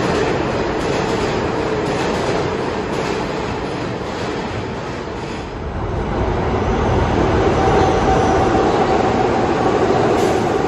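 New York City subway R160 trains on the express track: the rumble and clatter of one passing train fade through the first half. Then a second train arrives and runs past, louder, with a steady whine from about seven seconds in.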